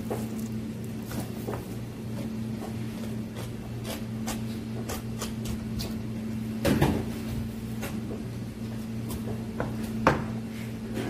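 Knife work and handling of a whole salmon on a cutting board: scattered light clicks and scrapes, a heavier thump about seven seconds in, and a sharp knock near the end. A steady low hum runs underneath.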